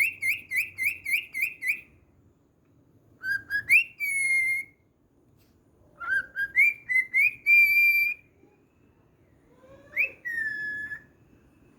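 Cockatiel whistling: a quick run of about seven rising chirps, then three phrases of short rising notes that each end in a held whistle, the last one sliding down in pitch.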